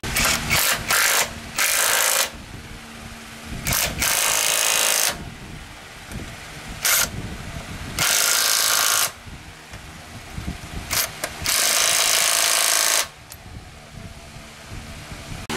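A power tool run in bursts: a quick string of short bursts at first, then four longer bursts of a second or so each, with pauses between.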